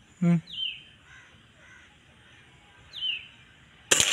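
Bird calls, a short harsh call and then two sharp falling calls, followed near the end by the sudden loud crack of a gunshot from the scoped rifle aimed at the bird.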